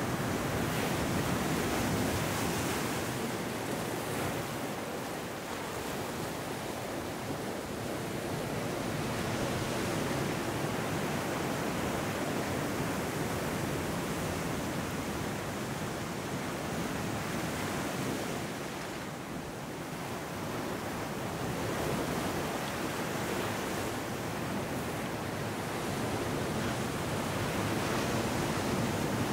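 Ocean surf breaking among rocks and washing up a sand beach: a continuous rush of white water that swells and eases as the waves come and go, dipping briefly about two-thirds of the way through.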